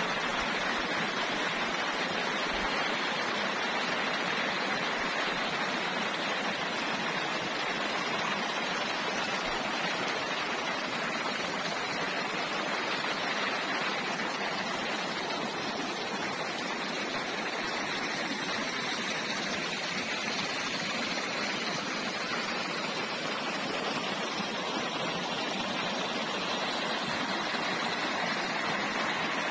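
A swollen, muddy river rushing fast: a steady, even rush of churning water that holds constant throughout.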